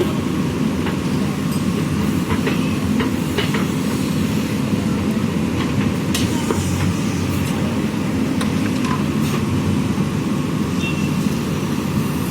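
Diesel engine of a JCB backhoe loader running steadily under work, with a few scattered knocks.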